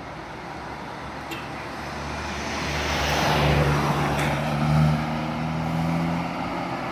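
Big bus's diesel engine labouring as it crawls slowly up a steep climb, growing louder as it approaches and passes about three to five seconds in, then easing off.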